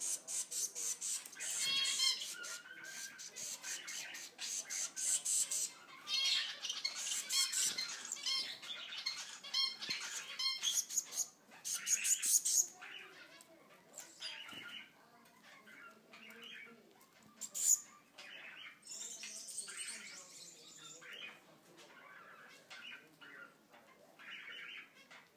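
Gouldian finch chicks in the nest giving rapid, rasping begging calls as the mother feeds them, loud in long runs for the first dozen seconds or so, then fainter and more scattered.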